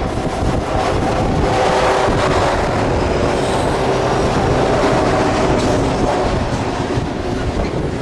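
Freight train passing close by: BNSF diesel locomotives going by at the start, then loaded coal hopper cars rolling past with a steady rumble and clatter of wheels on the rails. Wind is buffeting the microphone.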